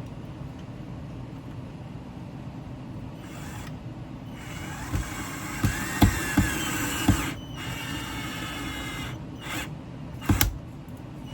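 AVID Power cordless electric screwdriver driving a screw with a washer into wood: the motor runs with a whine from about halfway through, with several sharp knocks, then runs again more quietly, and a loud knock comes near the end.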